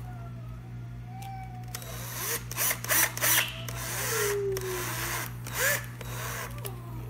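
Power drill driving a screw, running in several short bursts with its motor pitch sliding up and down.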